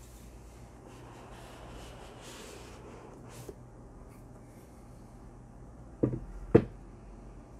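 Cardboard sleeve of a CPU retail box sliding off the inner box with a soft papery rubbing, then two sharp knocks about half a second apart as the cardboard is set down on a wooden desk.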